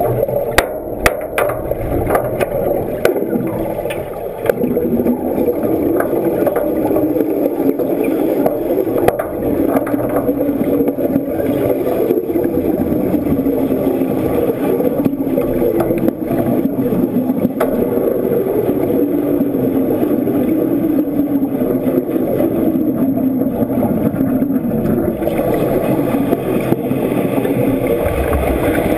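Continuous underwater bubbling and rushing, muffled by a submerged camera housing, with a few sharp clicks in the first couple of seconds.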